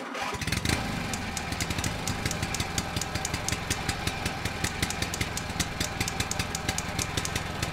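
An engine idling steadily, with a fast, even clatter of clicks over a low hum. It cuts in suddenly out of silence.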